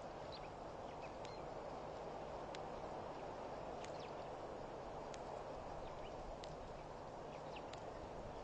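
Outdoor ambience at a waterhole: a steady hiss with scattered short, sharp ticks and a few brief chirps from birds calling.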